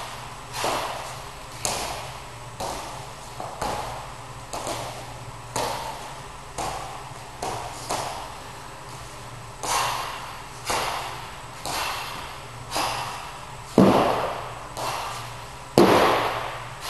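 Small dumbbells knocked down onto a floor mat about once a second as they are rowed up and set back down from a plank, each knock echoing in a large hall.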